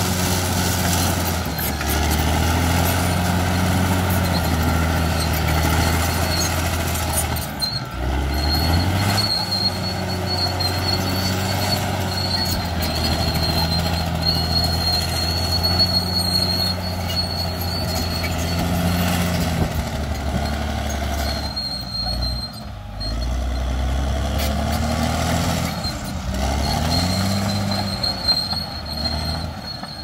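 Caterpillar D6 crawler bulldozer's diesel engine working under load while it pushes and levels soil. The engine dips and then revs back up several times. A thin high squeal comes and goes over the engine.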